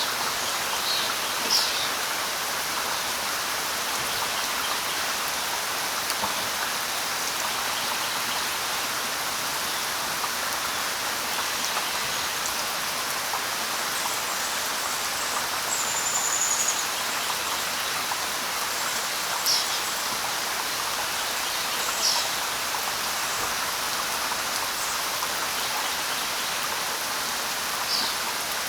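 Steady light rain falling on leaves and ground, an even hiss, with a few brief high bird chirps scattered through it and one short whistle about halfway.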